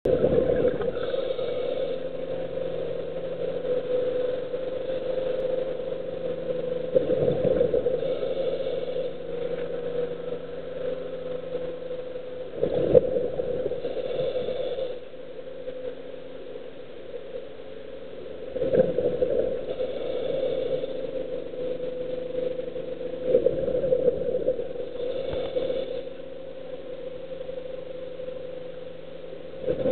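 A scuba diver breathing through a regulator underwater. A gush of exhaled bubbles comes roughly every six seconds, each followed by a hiss as the next breath is drawn, over a steady hum.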